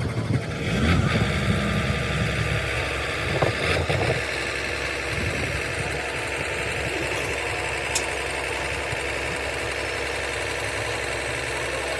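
An engine idling steadily, with a few light knocks in the first few seconds.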